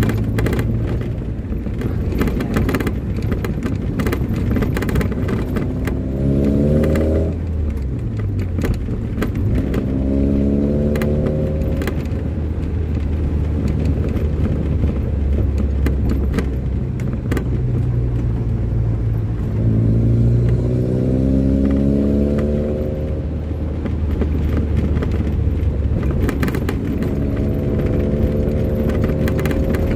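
Motor vehicle engine under way over a steady low rumble. Its pitch climbs as it accelerates and drops back at each gear change, several times over, with scattered short rattles and knocks.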